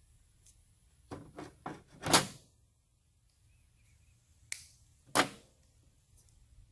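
Handling noises: a quick run of light knocks about a second in, ending in a louder knock, then two more sharp knocks a few seconds later, as small parts or tools are picked up and set down.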